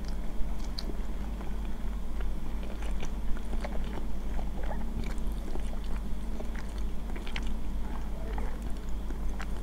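Close-miked chewing of a mouthful of instant noodles, with many small wet mouth clicks scattered through, over a steady low hum.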